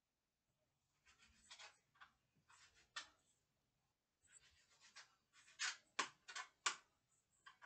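Scraping and rustling of hands and utensils working at a kitchen counter, coming and going in short bursts, with a few sharp clicks in the second half.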